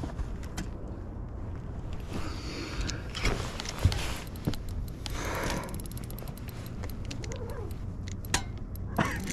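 Handling noise of a spinning rod and reel while a hooked king salmon is being fought: rustling and many small irregular clicks, over a low steady hum.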